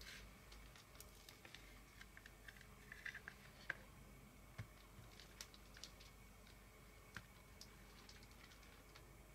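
Faint, scattered small clicks and crackles of a kitchen knife slicing through a thick sausage and its casing on a plastic cutting board, busiest in the first half, over quiet room tone.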